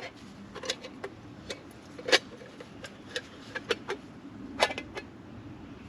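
A series of irregular sharp clicks and knocks, about a dozen in a few seconds, the loudest about two seconds in and again near the end.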